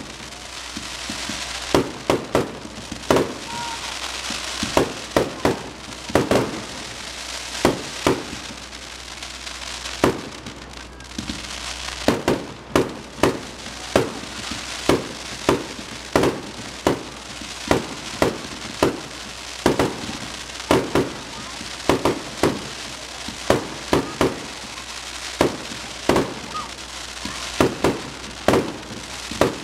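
Aerial fireworks display: shells bursting in a steady succession of sharp bangs, a few every couple of seconds, over continuous crackling, with a short lull about a third of the way in.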